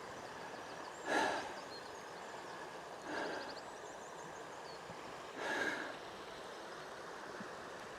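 A hiker breathing hard, three heavy exhalations about two seconds apart, over the steady rush of a stream.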